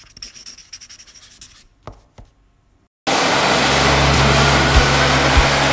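A pen-scratching sound of writing in short strokes for the first second and a half, then two soft clicks and a moment of quiet. About three seconds in, an explosion-proof lab high shear mixer cuts in abruptly, running steadily with a low hum and a hiss.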